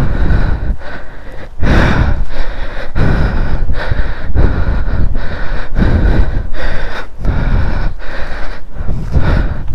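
Heavy, fast breathing close to the microphone, about two breaths a second, from a person out of breath while climbing a steep trail.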